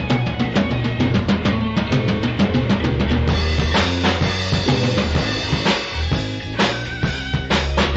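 A blues-rock band playing an instrumental passage, with the drum kit and bass to the fore. Quick, even drum strokes run for about the first three seconds, then a brighter, fuller wash comes in over the band, with a few strong hits.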